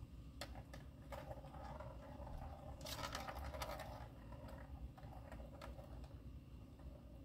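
Small plastic balls clicking and rattling around the rings of a tiered cat track-ball toy as a cat bats at them: scattered clicks, with a busier clatter about three seconds in.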